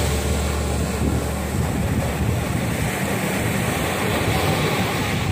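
Wind buffeting the microphone over surf breaking on the beach, with a steady low rumble.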